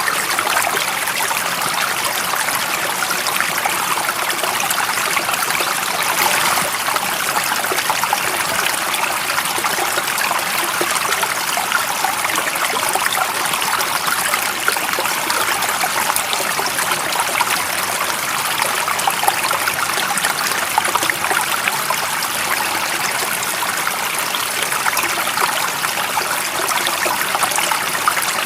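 Running water of a stream, flowing and trickling steadily with an even splashing hiss and little low rumble.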